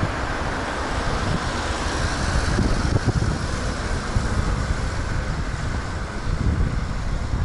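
Wind buffeting the microphone of a camera on a moving bicycle: a steady, dense rush, heaviest in the low range.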